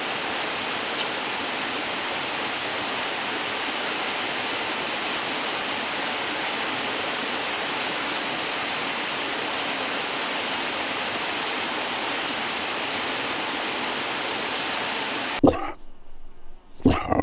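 Steady rush of a large waterfall. It cuts off abruptly near the end, and a couple of short knocks follow.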